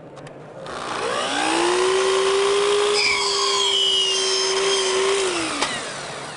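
Festool compound miter saw spinning up with a rising whine, running at full speed while its blade cuts a kerf into a wooden close fence, then winding down with a falling whine about five seconds in.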